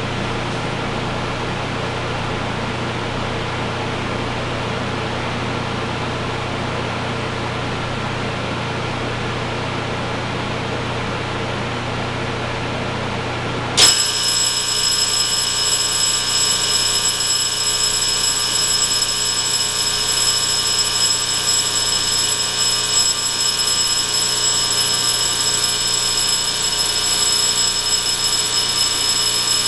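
A steady room hum, then about 14 seconds in an old 1966 Cincinnati 701-202 fire alarm starts abruptly and sounds continuously: a loud, steady, high-pitched ringing buzz with no breaks.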